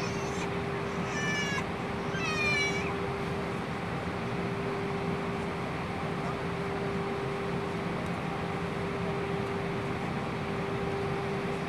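Steady cabin noise of an Airbus A320 in flight: an even rushing hiss with a constant hum. A cat meows twice, a wavering high cry about a second in and again at about two and a half seconds.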